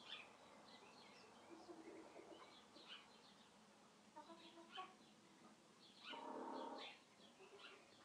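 Faint birdsong: small birds chirping in short scattered notes, with low clucking from chickens. About six seconds in there is one louder call lasting under a second.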